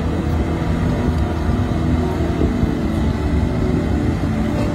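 Truck-mounted crane's engine running steadily under load while it lowers a rail, a dense low drone with a steady hum.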